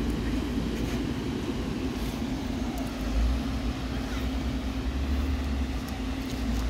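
Steady low mechanical hum over a deep rumble, swelling slightly about three seconds in and again around five seconds in.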